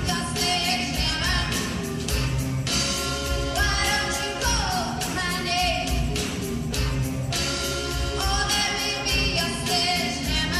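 Pop-rock song with a lead vocal singing over a steady drum beat and bass.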